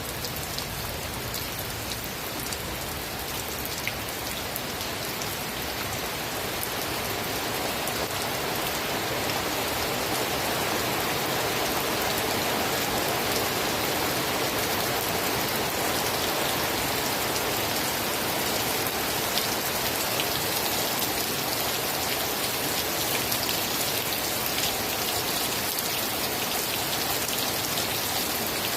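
Steady rain falling: a dense, even hiss with scattered individual drop hits, growing a little louder over the first ten seconds and then holding steady.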